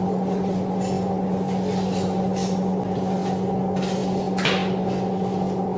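A steady machine hum at one low pitch, with a few short scrapes or knocks over it, the clearest about two and a half and four and a half seconds in.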